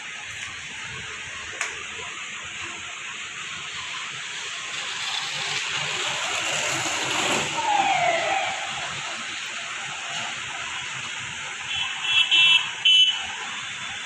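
Steady background road-traffic noise, with a falling squeal about eight seconds in and a few short, high horn beeps around twelve seconds in.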